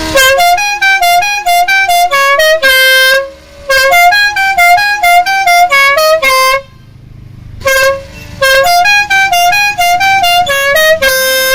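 Stebel six-trumpet musical air horn playing a fast tune of short, clear notes, in three runs with brief pauses between them.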